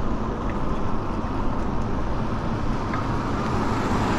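Steady wind rush buffeting the microphone, mixed with tyre noise on a cracked asphalt road, from an e-bike riding along at speed.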